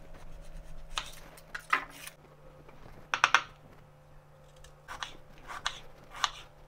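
Kitchen knife cutting a red onion on a wooden cutting board: several short, irregular knocks of the blade against the board.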